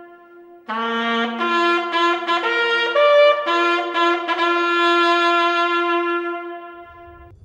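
Trumpet fanfare: several trumpets come in together about a second in with a run of short notes, then hold one long final note that fades out near the end.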